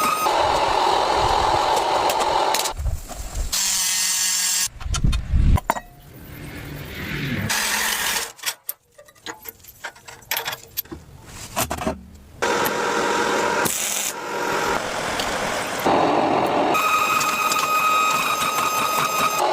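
Knife-making workshop tools and machinery, cut together in quick succession. A steady machine runs with a high whine at the start and again near the end, with shorter stretches of grinding and tool noise in between.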